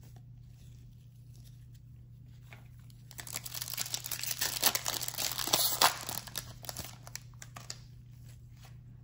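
Foil trading-card pack wrapper being torn open and crinkled by hand: a run of crackling tearing and crumpling that starts about three seconds in and lasts about four seconds, loudest around the middle.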